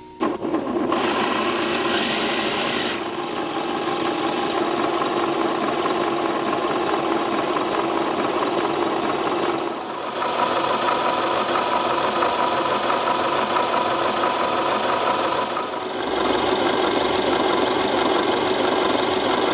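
Brushless outrunner motor driving a 3D-printed double helical gear pump, running steadily at speed as it circulates water through a loop of tubing. Dense gear and motor noise with a thin high whine on top, briefly dipping twice.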